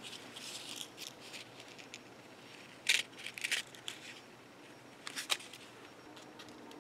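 Quiet handling of a plastic sequin packet and a small plastic case, with soft rustling and then a few short clicky rattles of loose sequins.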